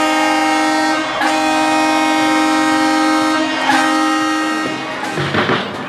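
Ice hockey arena goal horn sounding after a goal: a loud, steady, deep blast with a short break about a second in, then a second long blast that stops near the end.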